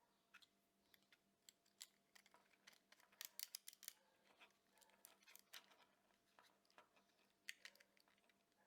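Faint, scattered small clicks and taps, busiest about three to four seconds in: 3D-printed plastic parts and electronics being handled and pushed together during assembly.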